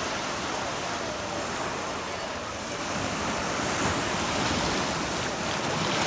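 Sea waves breaking and washing up the beach: a steady rushing noise that swells a little midway and again near the end.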